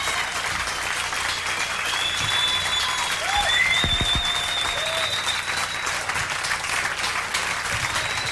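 Concert audience clapping and cheering, with high whistles and shouts over the applause.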